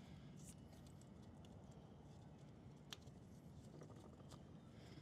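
Near silence: room tone with a few faint small clicks, the sharpest one about three seconds in.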